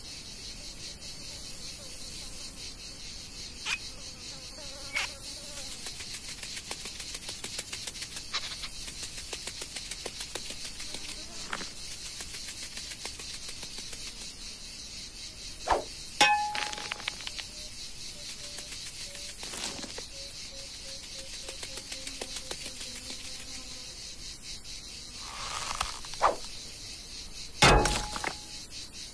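Steady chirring of insects, like crickets, with several short sharp knocks and clicks, the loudest about sixteen seconds in and again near the end. The loudest knocks are followed by a brief metallic ring.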